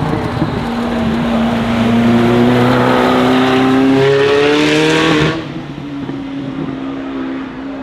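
Zenvo TSR-S's supercharged and turbocharged 5.8-litre V8 accelerating hard, its note climbing steadily in pitch. About five seconds in the sound drops off suddenly, leaving a lower, steadier engine note.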